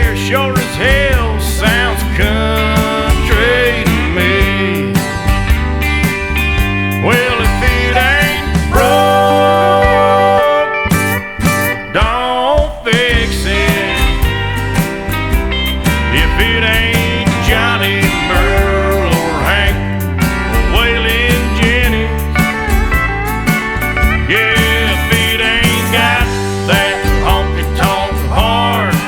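Country song playing as background music, with guitar and singing.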